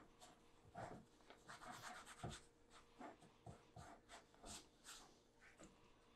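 Faint rubbing of a cloth towel wiped round the inside of a Lodge cast iron skillet in quick, irregular strokes. It is buffing off the excess oil so that only a thin seasoning layer is left.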